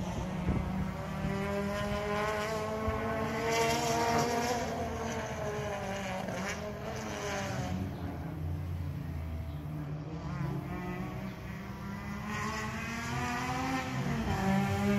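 Track-day cars' engines running hard around a circuit, their notes rising and falling in pitch as they accelerate and lap past.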